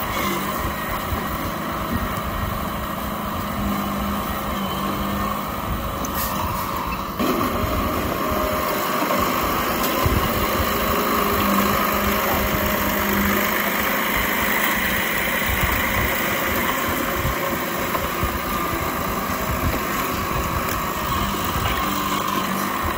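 Komatsu D31P crawler bulldozer's diesel engine running steadily, a little louder after about seven seconds.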